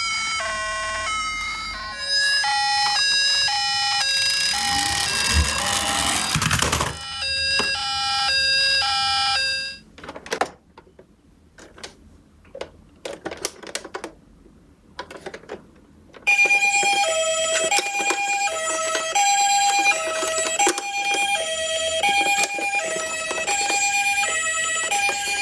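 Battery-powered toy ambulance sirens. Electronic stepped siren tones with a falling sweep run for about ten seconds and cut off, followed by plastic clicks and knocks of the toy being handled and its buttons pressed. About two-thirds of the way in, the large toy ambulance's two-tone hi-lo siren starts and repeats steadily.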